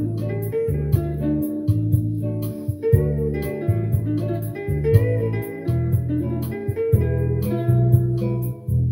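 Electric guitar played solo in a blues style: low bass notes change every half second or so while higher melody notes ring out above them.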